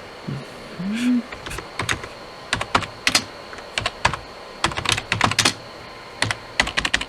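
Typing on a computer keyboard: irregular keystrokes in short runs with pauses between.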